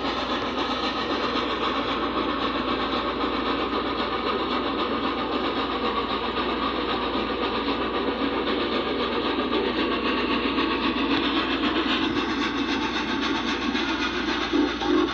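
C&O J3a 4-8-4 No. 614 steam locomotive running at speed with its passenger train: a steady, dense rush of exhaust and running noise. Its steam whistle starts to blow just before the end. The sound is played back through a TV and re-recorded.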